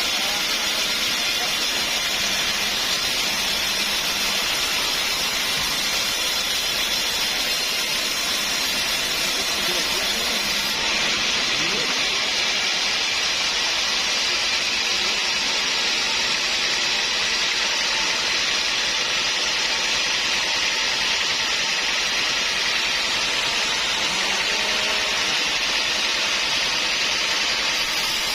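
Sawmill machinery running with a steady, unbroken noise that holds an even level throughout.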